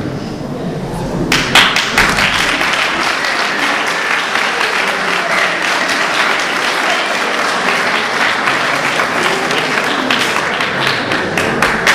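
A group of people clapping, starting suddenly about a second in and going on at a steady level.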